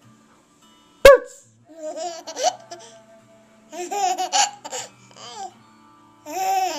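Baby laughing in short bursts of giggles, the first coming just after a sudden sharp, loud sound about a second in.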